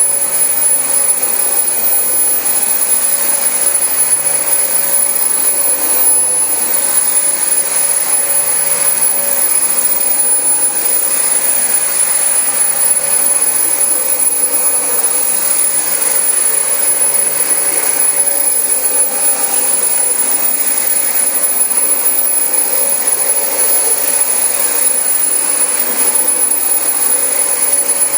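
Dyson DC25 ball upright vacuum cleaner running steadily on carpet: a constant whine with a high, thin tone over it.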